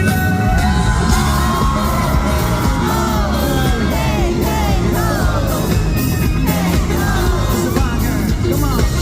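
A live pop-rock band playing loud through a concert sound system, with guitar and drums. Over it, many high voices whoop and scream in overlapping rising-and-falling cries.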